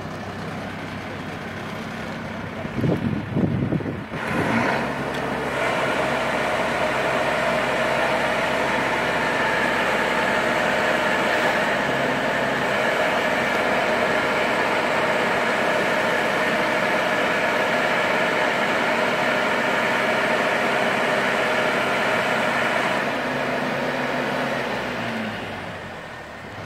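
Boat travel lift running under load as it hoists a wooden cruiser in its slings: a steady engine drone with a mechanical whine from the lifting gear. It swells about four seconds in after a short rough burst, holds steady, and eases off near the end.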